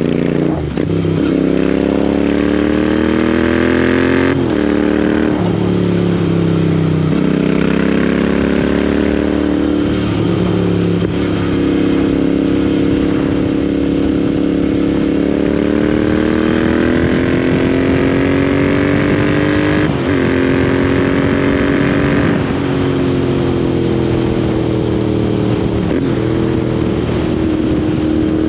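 Royal Enfield Interceptor 650's parallel-twin engine through Lextek slip-on exhausts, under way on the road. The exhaust note climbs and then drops back sharply at each gear change, about nine times, with one long steady pull in the middle.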